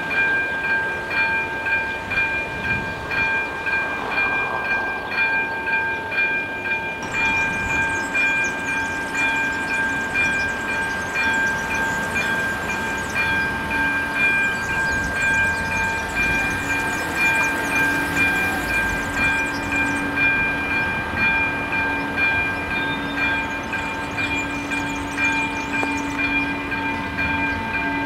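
Level-crossing warning bell ringing in an even, repeating rhythm. From about halfway through, the low hum of an approaching diesel shunting locomotive joins it.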